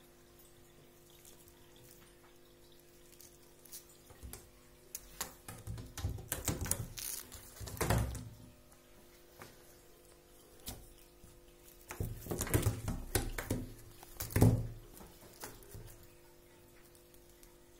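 A Bengal kitten's paws scrabbling and thumping on a floor mat as it pounces on a feather toy, in two bouts of quick scrapes and taps, each ending in a heavier thump. A faint steady hum lies underneath.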